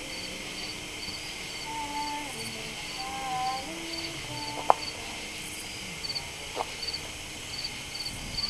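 Crickets chirping at night, short even chirps about two a second over a steady insect hiss. A few faint held tones sound lower down, and a single sharp click comes about five seconds in.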